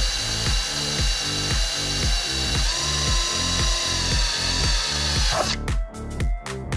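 Power drill running steadily with a high whine as it bores a small pilot hole through a car's steel firewall, stopping abruptly about five seconds in. Background music with a steady beat plays throughout.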